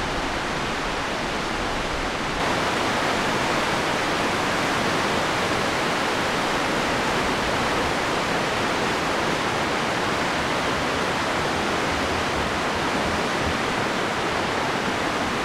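River rapids rushing steadily, a little louder after about two seconds.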